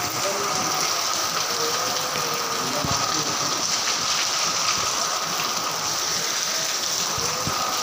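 Heavy rain falling steadily, with water streaming off the edges of corrugated tin roofs.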